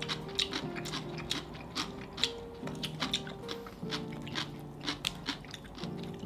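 Crisp double-fried kkanpunggi chicken being bitten and chewed: a run of sharp crunches at an irregular pace, over soft background music.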